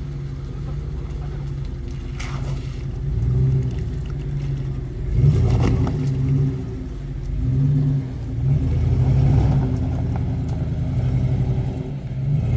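Off-road vehicle's engine running under load on rough terrain, revving up and easing off again about five times, with a couple of brief knocks.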